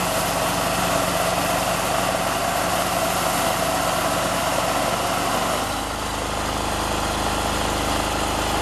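Mini combine harvester's engine running steadily; a little past halfway its note changes.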